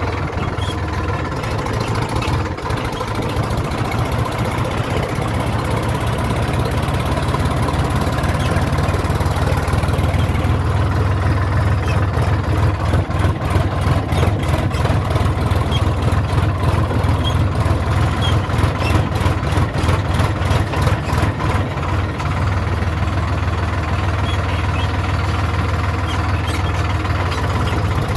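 Sonalika Sikandar DI 35 tractor's diesel engine running as the tractor drives along, heard from the driver's seat: a steady low hum, with a rhythmic pulsing through the middle stretch.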